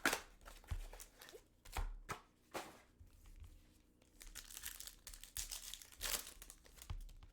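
Trading-card packaging being torn open and crinkled by hand: a run of irregular ripping and crackling of wrapper and box.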